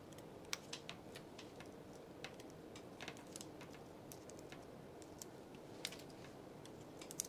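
Faint, irregular light clicks and taps of metal tweezers and small parts being handled and pressed into place on a Samsung Galaxy Note 10+ frame, over a low steady hiss.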